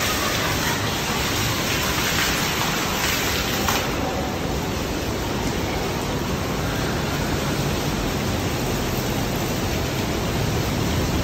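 Steady rush of water from waterfalls and splashing fountain jets.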